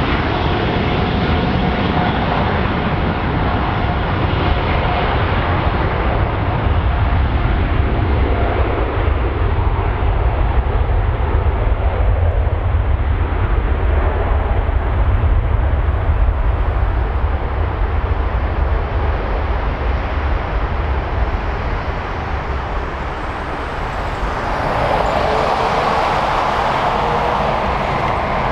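Boeing 787-9 airliner's jet engines running: a steady low rumble, then a louder rushing jet noise swelling in near the end as takeoff thrust builds and the aircraft rotates.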